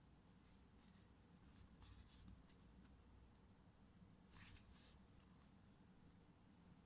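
Near silence with faint scratchy rubbing: several brief rubs in the first half and a slightly louder one about four and a half seconds in.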